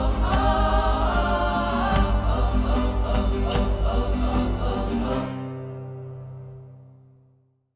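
Music with layered, chant-like voices over a rapid low pulse. It stops about five seconds in, leaving low held tones that fade away to silence.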